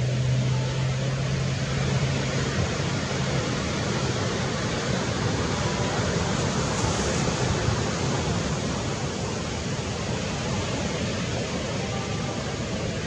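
Steady rushing outdoor noise, with a low steady hum for the first few seconds.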